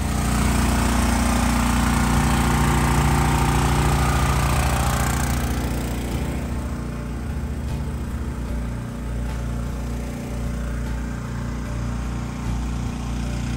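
An engine running steadily, with a loud hiss over it that eases off after about five seconds.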